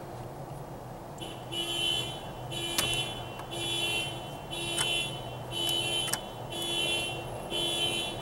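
Electronic alarm beeping in a steady pulse, about one beep a second, starting about a second in.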